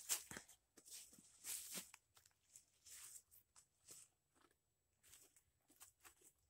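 Faint, irregular rustling and scuffing of a cloth bag and strap being handled and hung on a tree trunk, with a sharper click right at the start.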